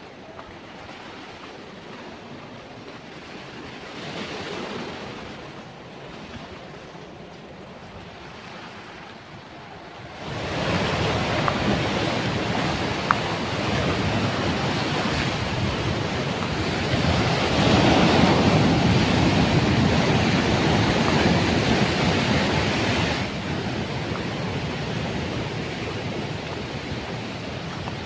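Sea surf breaking and washing over a rocky shore, a steady rush of waves. It is fairly soft at first, then much louder from about ten seconds in, easing a little near the end.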